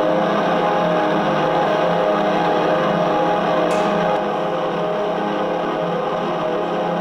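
Dense electronic drone music from a keyboard synthesizer through PA speakers: several held tones over a low, evenly repeating throb. A brief hiss comes just before the middle, and the level drops slightly a little after halfway.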